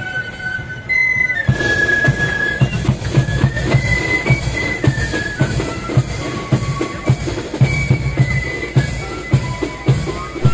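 Marching flute band playing a melody on flutes, with bass and side drums beating a steady march rhythm. The drums come in loud about a second and a half in.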